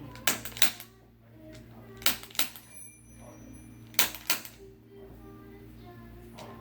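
Activator chiropractic adjusting instrument, spring-loaded, clicking as it delivers low-force adjustments. There are three pairs of sharp clicks about two seconds apart, with the two clicks in each pair about a third of a second apart.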